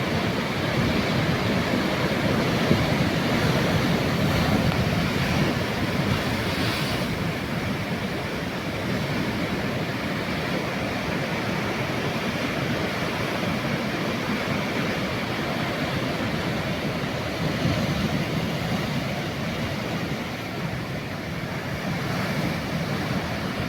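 Sea waves breaking and washing on the shore in a steady rush of surf, swelling and easing gently.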